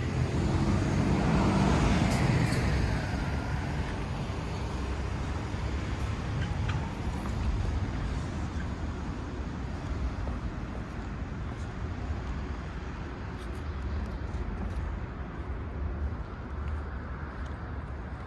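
A road vehicle passes close by, loudest in the first three seconds, with a falling pitch as it goes past. After that comes steady traffic noise.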